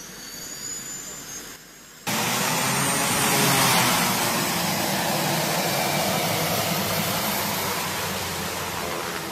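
Single-engine turboprop of an A-29 Super Tucano (Pratt & Whitney PT6A) running on the ground. The first two seconds are quieter, with a high turbine whine. About two seconds in, the sound jumps to a much louder, close rushing engine-and-propeller noise with a steady low hum underneath.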